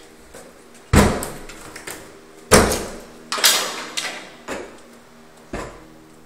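A series of sharp knocks or bumps at uneven intervals, six in all, each with a short echo, over a faint steady hum.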